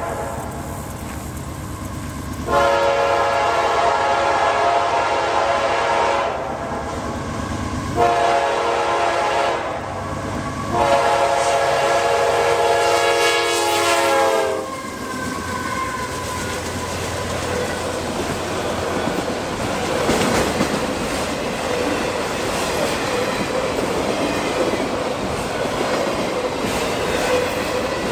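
CSX freight locomotive's air horn sounding three blasts at the crossing, the last one held longest and dropping in pitch as the locomotive passes. Then the freight cars, autoracks among them, roll past in a steady rumble.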